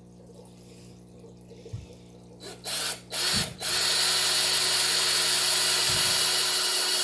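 Power drill with a 3/16-inch bit, blipped twice and then run steadily to bore a hole in a plastic filter pipe; the bit is really dull. A low steady hum sits under the first few seconds.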